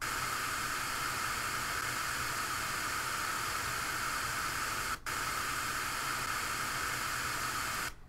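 TV static sound effect playing back: a steady hiss of white noise, strongest in the upper middle range. It drops out for an instant about five seconds in and cuts off suddenly near the end.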